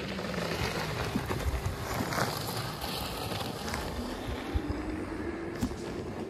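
Electric unicycle rolling along a gravel track: steady tyre noise on loose gravel with wind on the microphone and a few small clicks.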